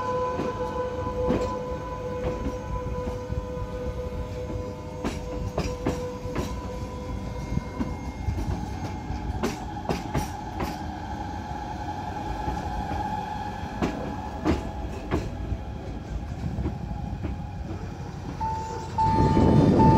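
Domodossola–Locarno narrow-gauge electric train (ABe 4/6 unit) rolling slowly past, with a low rumble and many clicks and knocks from its wheels on the rails. A steady high-pitched whine sounds throughout and drops a little in pitch about eight seconds in. A short pulsing tone sounds near the end.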